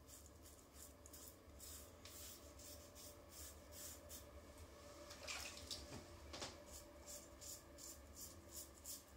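Faint rasp of a double-edge safety razor with a Gillette Rubie blade scraping stubble through shaving cream, in a quick run of short strokes, several a second.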